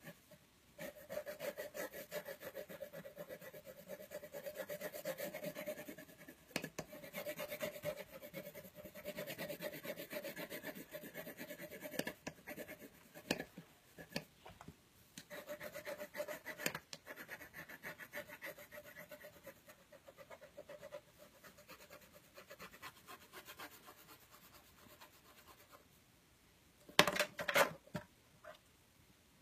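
Watercolor pencil scribbling rapidly back and forth on paper, shading in a large area, with brief pauses between runs of strokes. Near the end, a few louder knocks.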